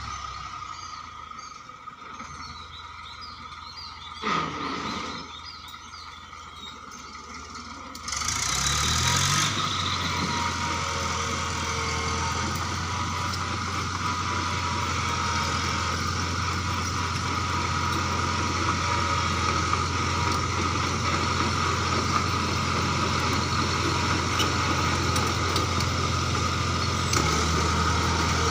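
Bulldozer's diesel engine running, at first at low revs, then revving up about eight seconds in and running on steadily at higher revs.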